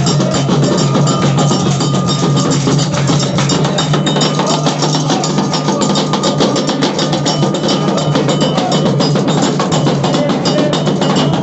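Percussion music: fast, steady drumming with a wooden knocking rhythm over it.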